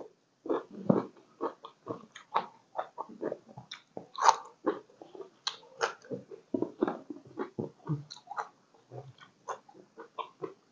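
A person chewing a mouthful of Isan sausage and raw vegetables: wet, crunchy chewing at about two chews a second.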